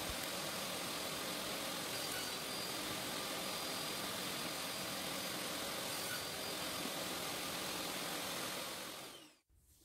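Steady rushing hum of a running workshop machine motor, fading out about a second before the end.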